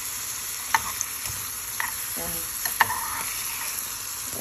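Chopped tomatoes, green peppers and garlic sizzling in hot oil in an earthenware pot while a metal spoon stirs them, with a few sharp clinks of the spoon against the pot.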